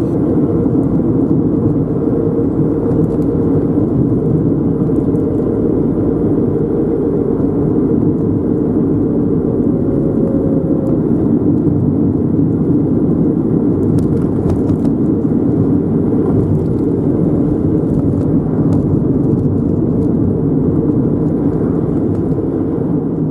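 Car driving at a steady speed: a steady, low rumble of road and engine noise.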